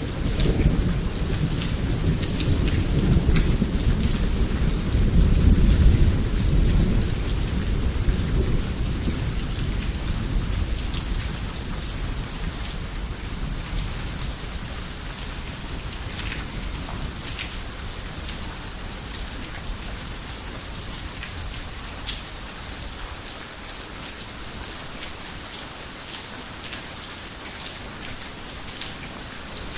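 Heavy rain falling steadily, with scattered drop ticks on a hard surface. A long, deep rumble of thunder builds in the first few seconds, is loudest about six seconds in, then slowly dies away over the next dozen seconds, leaving only the rain.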